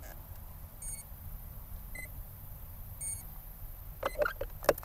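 Short electronic beeps from powered-up RC gear, about one a second, alternating between a higher and a lower tone. Near the end come a few sharp clicks and knocks as the plane is handled.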